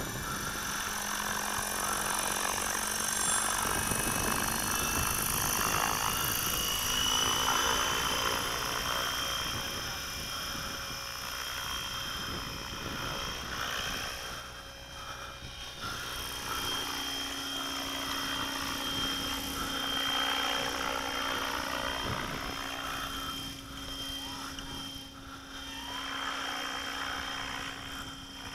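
HK600GT 600-size electric RC helicopter flying, its brushless motor and gears giving a high whine over a low steady rotor hum. The whine rises in pitch over the first several seconds, then holds steady while the loudness swells and dips as the helicopter moves about.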